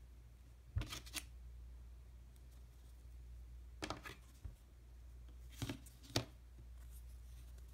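Small handling clicks and scrapes from a Sharpie marker, a quarter and a plastic gift card being picked up and set down: short clusters about a second in, at about four seconds and twice near six seconds, over a steady low hum.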